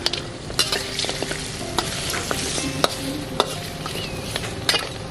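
Pork trotters sizzling in oil in a black wok, stirred with a metal spatula that scrapes and clinks against the pan at irregular moments. The meat is being fried until the fat renders out, before the spices go in.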